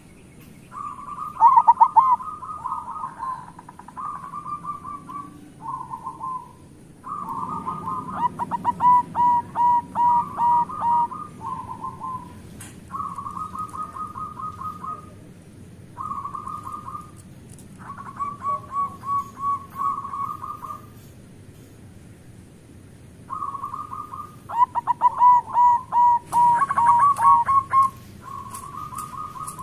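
Zebra dove (perkutut) cooing: about a dozen rolling, staccato coo phrases of one to two seconds each, with short pauses between them.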